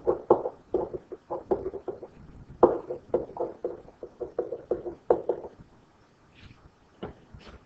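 A stylus tapping and scratching on a digital writing surface as words are handwritten: a quick, uneven run of small knocks for about five seconds, then a few separate taps near the end.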